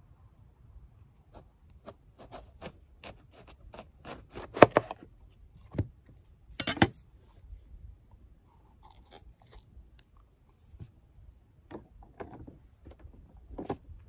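Knife cutting into a fresh bell pepper: an irregular run of sharp clicks and crunchy snaps, the two loudest about four and a half and six and a half seconds in.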